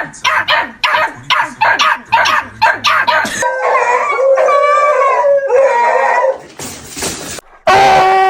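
Beagle barking rapidly, about three barks a second, then breaking into a long wavering bay-howl about three and a half seconds in. A loud, steady held call comes near the end.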